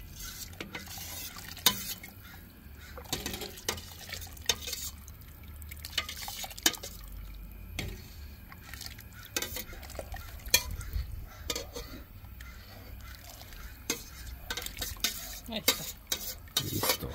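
A metal ladle scraping and clinking against a metal saucepan as chile sauce is ladled into a large aluminium stockpot of boiling menudo, with many short irregular clicks and scrapes over a low steady rumble.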